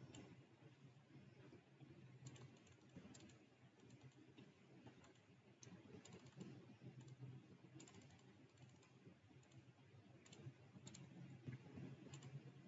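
Faint computer-keyboard typing: irregular, scattered keystrokes while a file path is typed in, over a low steady hum.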